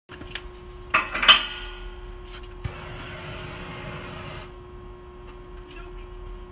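A plastic bucket clattering as it is handled and set down, a sharp click, then oxygen-propane gas hissing for about two seconds before it stops, leaving a faint steady hum.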